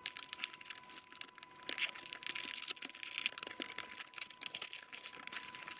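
Thin plastic wrapping crinkling and tearing as it is cut and pulled off a cardboard box, in a dense run of irregular crackles.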